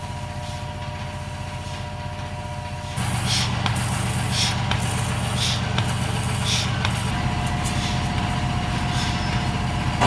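Milking machine running: a steady low hum of the vacuum system throughout, and from about three seconds in, a short hiss repeating about once a second as the milker unit on the cow's teats pulsates.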